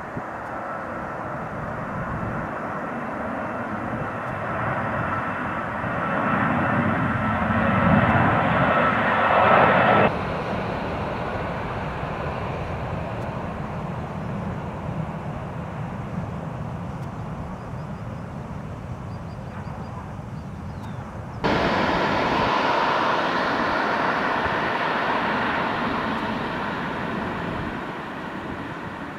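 Jet engines of twin-engine airliners. First a departing jet's engine roar builds to a peak and breaks off abruptly about ten seconds in. A quieter stretch of jet noise from a landing airliner follows, and about two-thirds of the way through it jumps abruptly to a louder landing Boeing 737's engine noise, which then fades.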